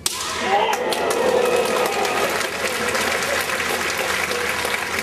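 Audience in a large hall applauding a scored point in a kendo match, with some voices calling out under the clapping.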